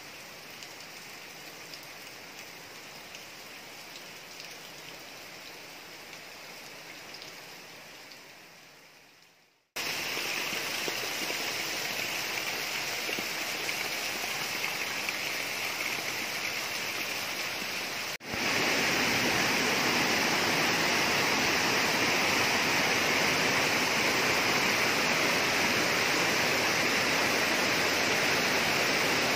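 Steady rushing noise without any pitch, in three even stretches that each start louder than the last, with sharp cuts about ten and about eighteen seconds in.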